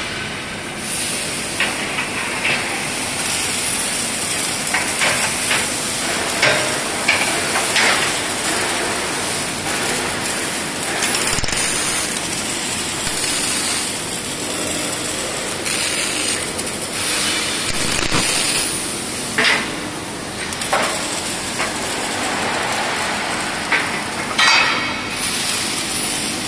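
Arc welding on a steel trailer main beam: a steady crackling hiss with short sputters, over the continuous noise of the workshop and a few metallic clanks.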